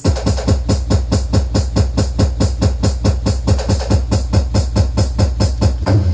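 DJ dance remix playing loudly through a PA speaker and amplifier under a sound test: a fast, even drum beat of about six or seven hits a second over heavy bass.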